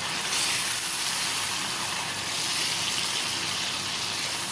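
Chicken, onions and ground spices sizzling in hot ghee in a karahi while a spatula stirs them: a steady hiss that gets a little louder about half a second in.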